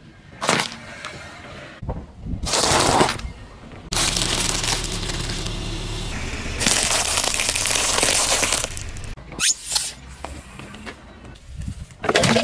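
Car tyre rolling over and crushing food: a short snap and a crunching burst as a yellow pepper is flattened, then a long stretch of dense crackling as a pile of peanuts in their shells is crushed, with a few sharp cracks near the end.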